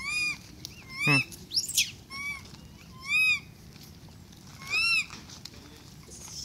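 A series of short, high-pitched animal calls, about six, each one rising and falling in pitch. They come roughly a second apart, and one near the middle sweeps steeply up and down.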